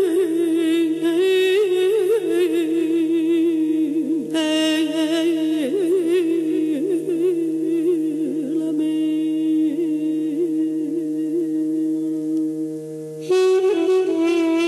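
Music: a wind instrument plays a slow melody with quick trills and wavering ornaments over a steady drone, getting louder shortly before the end.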